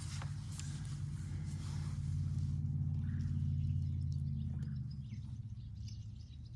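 A small motor humming steadily, louder in the middle and easing off about five seconds in, with a few faint clicks over it.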